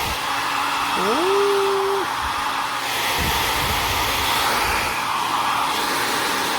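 Slopehill 1800W ionic hair dryer running steadily: a loud, even rush of blown air over its motor. A brief rising tone sounds about a second in.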